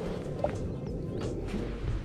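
Steady low rumble of wind and lapping water around a kayak, with a few faint clicks.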